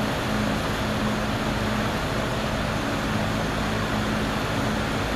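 Vintage ILG box fan running steadily on its high setting: an even rush of moving air over a constant low motor hum.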